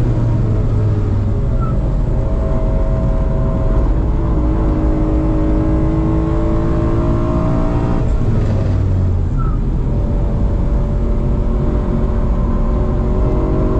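BMW car's engine heard from inside the cabin, pulling with its pitch rising slowly, dropping away about eight seconds in, then climbing again. A steady low tyre and road rumble runs underneath.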